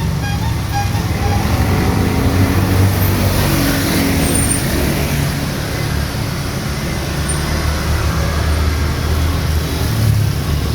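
Heavy rain falling steadily, with the low engine of a motor vehicle on the wet road underneath, swelling and fading as it passes.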